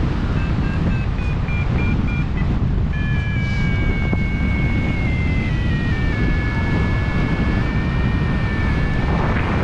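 Steady rush of airflow over the microphone of a hang glider in flight, with a variometer tone over it: short beeps for the first couple of seconds, then from about three seconds in a continuous tone that slowly falls in pitch, the vario signalling serious sink.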